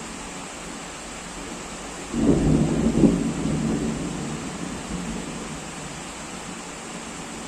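Steady heavy rain with a loud thunderclap breaking in about two seconds in: a deep rumble that peaks about a second later and fades away over the following few seconds.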